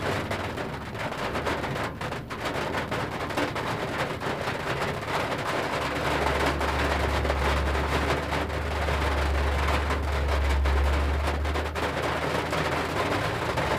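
Rain pattering on a vehicle's roof and windscreen, heard from inside the cab as a dense crackle of small ticks, over a truck engine's low rumble that grows louder about six seconds in.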